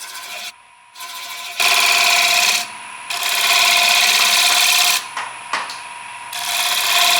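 Bowl scraper cutting the inside of a sycamore bowl spinning on a wood lathe: a rasping scrape in three passes, each one to two seconds long, with the lathe's steady hum between them.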